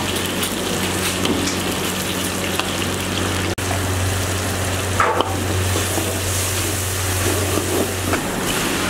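Hot oil sizzling and bubbling in a large iron wok as sliced onions and a green paste fry and are stirred with a long metal ladle, with a steady low hum underneath. A short sharp sound about five seconds in.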